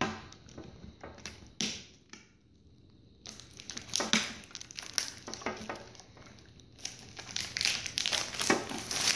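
Clear plastic shrink wrap being torn and crumpled by hand as it is stripped off a trading-card tin, in irregular crackling bursts, with a short lull about two seconds in and the busiest crinkling near the end.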